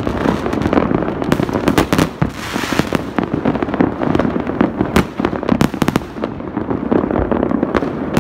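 Many fireworks going off at once around the neighbourhood: a dense, unbroken mix of crackling with frequent sharp bangs, several a second.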